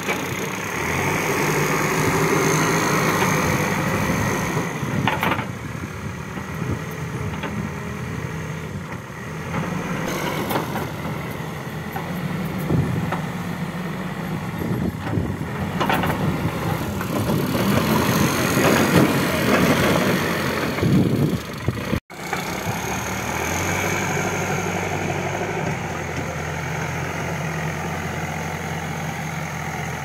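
Escorts Digmax backhoe loader's diesel engine running steadily while the front loader bucket levels soil, its note swelling and easing with the work. The sound cuts out for an instant about two-thirds of the way through.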